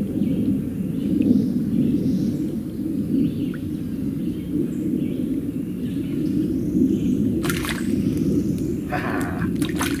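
Steady low outdoor rumble with faint bird chirps above it. In the last couple of seconds come a few sharp clicks and a short splashy burst as the light spinning rod is lifted and the line comes out of the creek.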